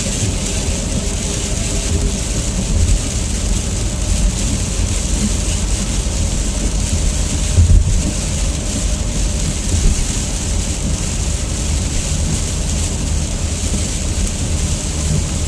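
Steady road and tyre noise inside a car cabin at highway speed, with a low rumble, a hiss and a few small bumps.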